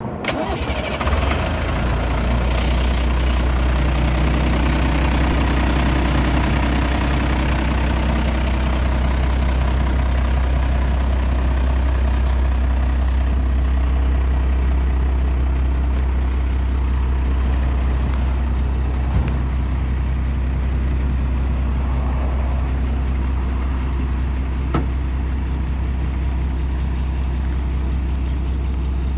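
A 1990 International medium-duty truck's diesel engine idling steadily with the hood tilted open, a constant low, even rumble.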